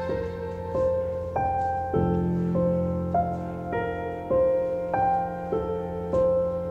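Slow, sad background music: piano notes struck one after another over a held low tone.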